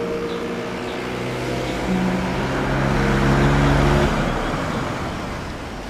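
A car driving up along the street, its engine and tyre noise swelling to a peak about halfway through and then easing off. Soft background music plays under it.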